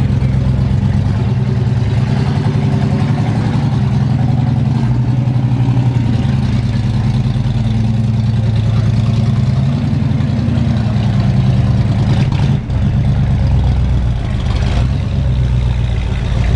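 A motor vehicle's engine running steadily at idle close by. Its low pitch shifts slightly lower about two thirds of the way through.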